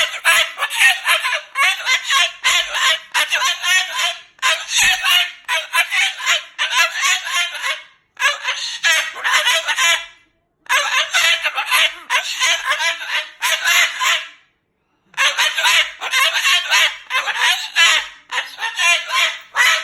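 Moluccan cockatoo screeching loudly in long runs of harsh, rapid calls, broken by short pauses about 8, 10 and 14.5 seconds in.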